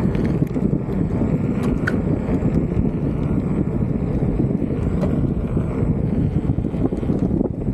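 Wind buffeting the camera microphone while riding an electric unicycle along pavement, a steady low rumble with a few light clicks from the ride.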